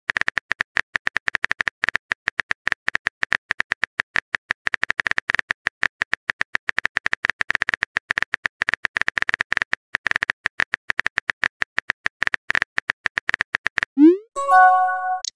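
Rapid, irregular keyboard tap clicks of a texting app's on-screen keyboard as a message is typed out. Near the end, a quick rising swoosh and a short chime as the message is sent.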